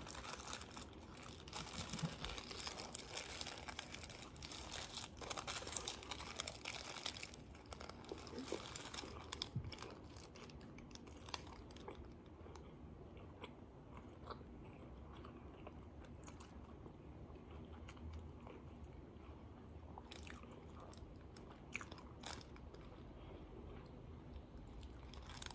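Close-up eating sounds: a paper sandwich wrapper rustles and crinkles for the first several seconds, then bites and chewing of a fried chicken sandwich on glazed donut buns, with scattered soft crunches.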